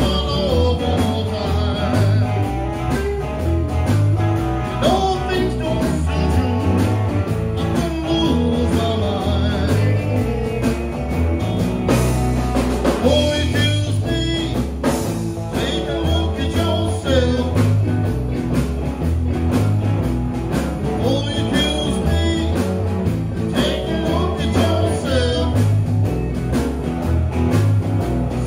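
Live blues-rock band playing, with two electric guitars and an electric bass over a steady beat, and a man singing into a microphone.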